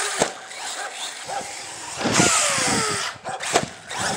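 Electric RC truggy (Arrma Typhon 6S geared on a 12-tooth pinion) driving on grass: the brushless motor and drivetrain whine, surging and then falling in pitch as it slows, loudest about two seconds in. A couple of sharp knocks come from the chassis hitting bumps.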